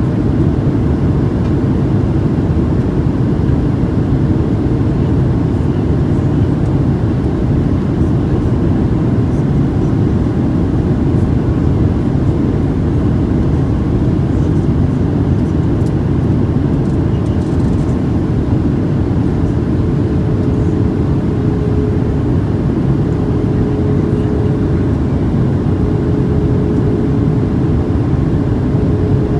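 Steady cabin noise of a Boeing 737-700 in flight: the even rumble of its CFM56 engines and the airflow over the fuselage heard from inside the cabin, with a faint steady hum that grows clearer about two-thirds of the way through.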